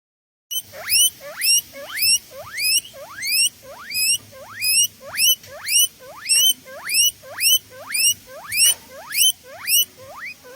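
A mouse-squeak sound effect: short squeaks, each rising sharply in pitch, repeating steadily about twice a second after a brief silence at the start.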